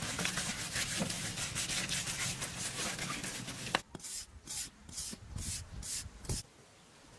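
A bare hand rubbing and smoothing wet mud-and-straw plaster, with continuous scratchy rubbing for the first few seconds, then about six separate wiping strokes, roughly two a second, stopping about six seconds in.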